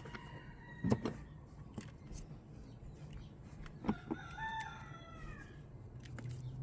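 A rooster crowing twice, with a couple of sharp knocks about one and four seconds in.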